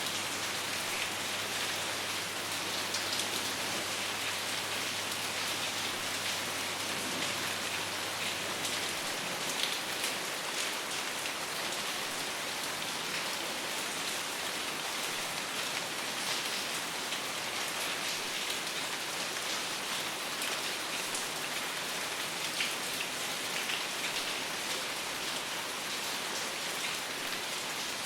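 Steady rain falling, an even hiss with many small drop hits scattered through it and no thunder.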